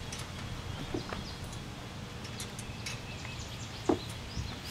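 Outdoor ambience: birds chirping over a steady low rumble, with a few faint clicks and one short, louder sound about four seconds in.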